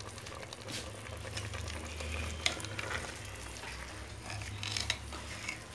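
Biryani rice being stirred slowly with a long spatula in an aluminium pressure-cooker pot: soft scraping with a few light knocks against the pot. Under it are a faint sizzle and a low steady hum.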